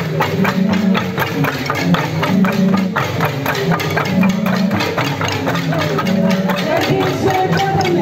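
Kalinga bamboo instruments played together: a quick, even beat of sharp bamboo strikes over low, droning tones that step from pitch to pitch.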